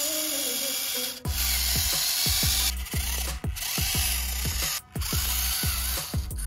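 Music with a heavy bass beat of deep hits that drop sharply in pitch, coming in about a second in, under a steady high whir.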